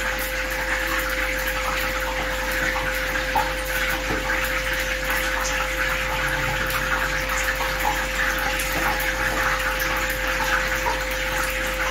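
A steady rushing hiss with a constant hum under it, with faint scattered rustles and ticks of breadcrumbs being pressed onto a bread roll by hand.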